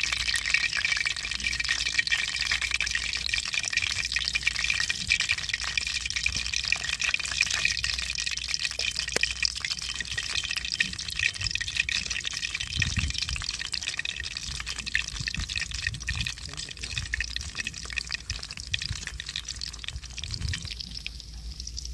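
Dal pakora batter deep-frying in a kadai of hot oil: a steady sizzle full of fine crackling as more pieces are dropped in by hand.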